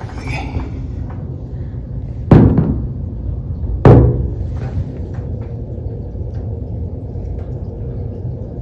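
A steady low rumble with two loud knocks, the first a little over two seconds in and the second about a second and a half later.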